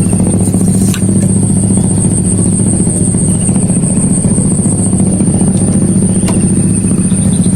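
A small engine running steadily at a constant speed, with a steady high-pitched whine over it and a few light clicks.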